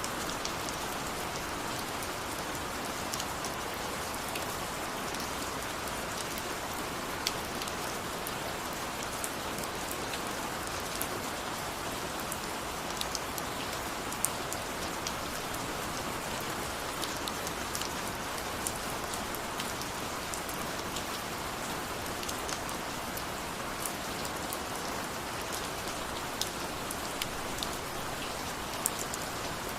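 Steady rain falling, a constant hiss with many scattered individual drops ticking sharply on a surface.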